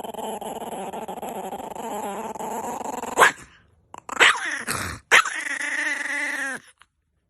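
A dog growling for about three seconds, then a short falling yelp and a longer, steadier whining call.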